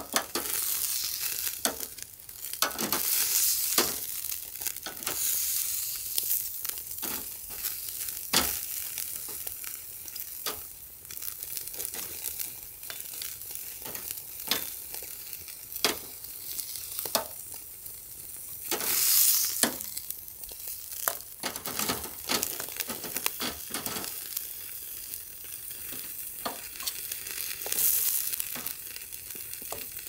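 Wood fire crackling, with irregular sharp snaps over a steady sizzling hiss.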